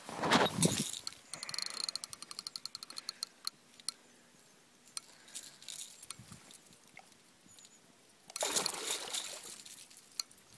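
A brief loud rush of noise at the start, then a fishing reel ticking rapidly, about ten ticks a second, for some two seconds as line comes in. Near the end comes a splash of a hooked pike swirling at the surface.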